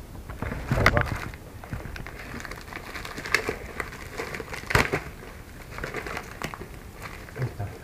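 Plastic bubble-wrap bag crinkling and crackling as it is handled and unwrapped, in irregular bursts with the loudest about a second in and again just before five seconds.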